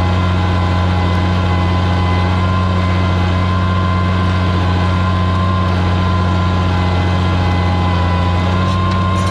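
Oliver 77 tractor's six-cylinder engine running steadily under load while pulling a plow through the soil.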